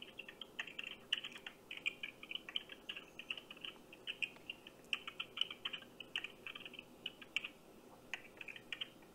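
Rapid, irregular computer-keyboard typing heard thin and tinny through a phone's speaker, from the customer service agent on the other end of the call, pausing briefly near the end before starting again.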